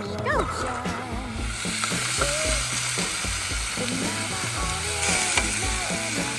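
Chicken thighs sizzling on a gas barbecue hotplate: a steady frying hiss that starts about a second and a half in. Background music with a steady beat plays under it.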